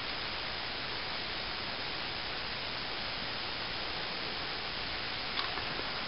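Steady hiss of recording noise with no other sound above it, and a couple of faint clicks near the end.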